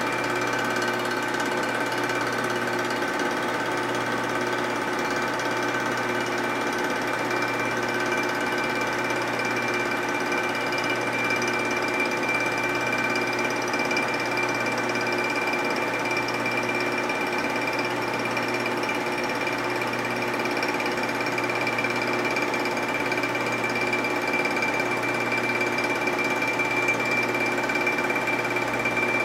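Vertical milling machine running an end mill in a light cut on the welded aluminum crankcase of a 1947 Harley-Davidson knucklehead, the case fed slowly past the cutter on a hand-cranked rotary table. The machine noise holds steady, with a high whine.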